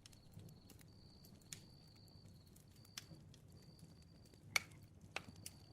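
Faint crackling of a bonfire: scattered pops and snaps, the loudest about four and a half seconds in, over a soft low rumble of the flames.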